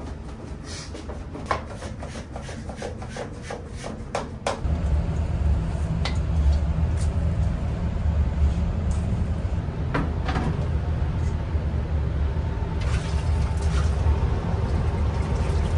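Ramen kitchen work sounds: a quick run of light clicks and knocks of utensils and cookware, then about four and a half seconds in a steady low rumble starts and runs on, with a few sharp clinks over it.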